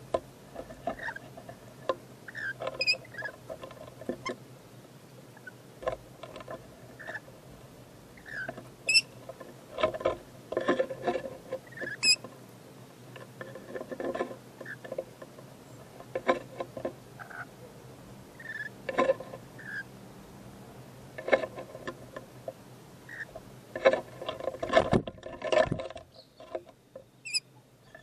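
Rainbow lorikeets feeding on fruit right at the microphone: irregular clusters of clicks and taps from their beaks biting and tearing the fruit, mixed with soft short chirps and a few high thin squeaks.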